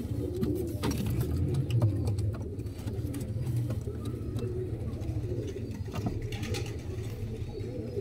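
Ferozepuri pigeons cooing steadily, with a few short clicks.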